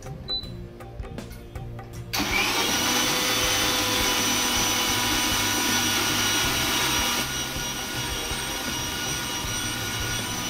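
Electric mixer grinder starts about two seconds in, spins up and runs steadily, wet-grinding spices with a little water into a paste. It turns a little quieter and duller about seven seconds in.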